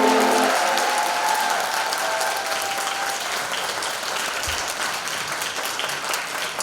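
The last held chord of the choir and ukuleles stops about half a second in, followed by audience applause that slowly fades away.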